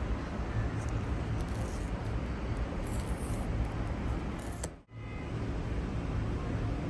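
Steady outdoor city noise with a heavy low rumble from wind and traffic, with a few light clicks and crackles of handling. The sound drops out sharply for an instant about five seconds in, then resumes.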